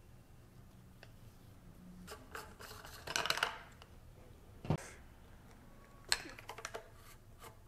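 Quiet rubbing and scratching of PVC plumbing parts as a taped PVC ball valve is fitted and screwed by hand onto a threaded manifold fitting. There is one sharp plastic knock just before the middle and a run of small clicks and crackles near the end.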